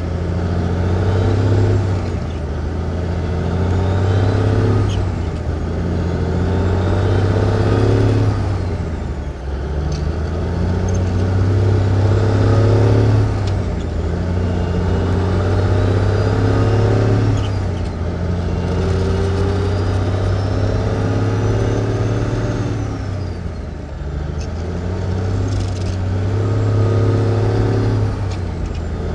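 1954 big rig truck heard from inside the cab, pulling away through the gears. The engine note climbs in each gear and drops at each shift, with several shifts a few seconds apart.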